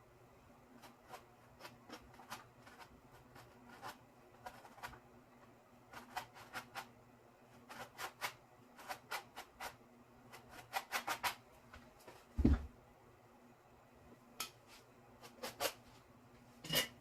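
Irregular short scrapes and taps of hand tools working on a painting canvas, coming in small clusters, with one dull thump a little past halfway and a sharp click near the end.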